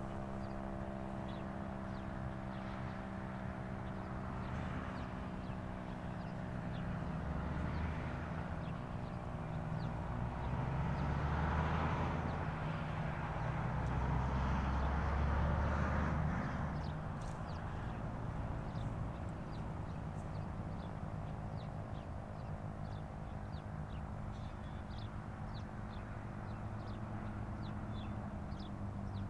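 Federal Signal STH-10 outdoor warning siren winding down at the end of its full-alert test, a low tone with overtones slowly dying away. A vehicle passes in the middle, the loudest part, and birds chirp near the end.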